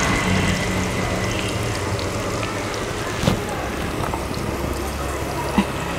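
Jackfruit strips deep-frying in hot oil in a wok: a steady sizzle of bubbling oil, with two light clicks about three and five and a half seconds in.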